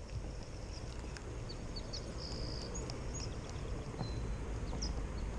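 Outdoor ambience: a steady low rumble with a few short, high bird chirps about two seconds in and a brief high note near the end.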